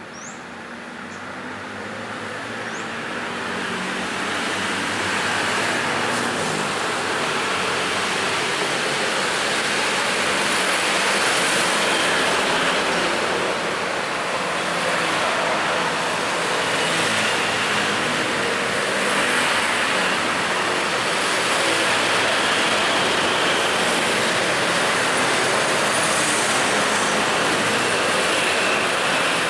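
Busy main-road traffic: a dense, steady wash of passing vehicles and tyre noise, building up over the first few seconds and then holding steady.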